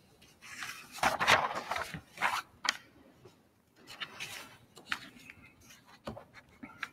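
Paper rustling and pages being handled close to a lectern microphone, heaviest in the first few seconds, then softer shuffling with a few light clicks and knocks.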